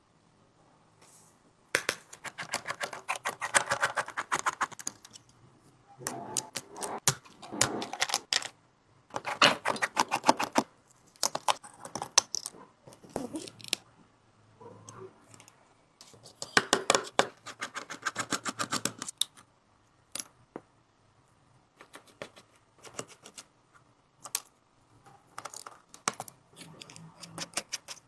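Small metal repair tools clicking and scraping against an iPhone 16's glass and frame. The sound comes in bursts of rapid ticking a couple of seconds long, with single clicks in between.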